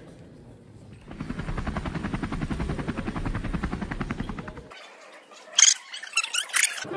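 Rubber-band-powered model helicopter's rotor whirring with a rapid, even flutter as it climbs; the flutter starts about a second in and stops abruptly before the end. A few sharp clicks follow.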